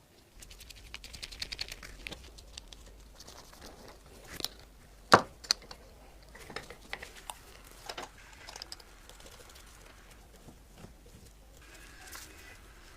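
Light irregular clicks and taps from small parts being handled, a quick flurry at first, then scattered ticks, with one sharp loud click about five seconds in.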